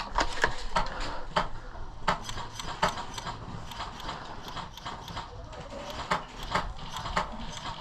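Irregular sharp clicks and knocks, about two or three a second, of a player's footsteps and gear rattling as he moves across the field.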